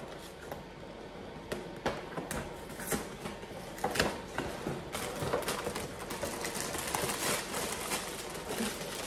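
Cardboard cereal box being pried open by hand: scattered taps, scrapes and tearing of the box flaps, then the plastic inner bag crinkling during the second half.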